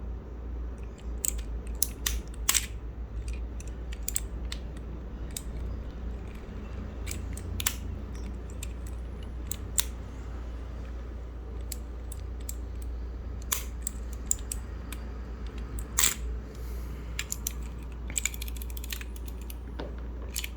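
Irregular sharp clicks and taps of hard plastic and metal keyboard parts being handled and worked apart, about one a second with a few quick clusters, over a steady low hum.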